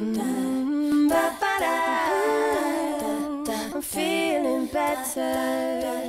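A cappella closing-theme song: several voices singing and humming a melody in harmony, with no instruments.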